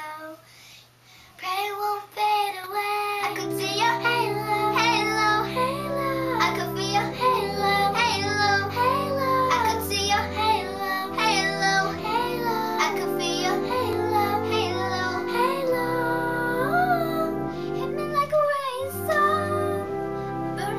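A girl singing a melody with wavering held notes over an instrumental backing of held chords and bass that comes in about three seconds in.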